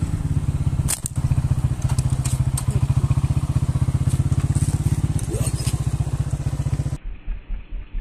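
A small engine running steadily with a rapid, even low thumping, with a sharp click about a second in; the sound cuts off abruptly about a second before the end.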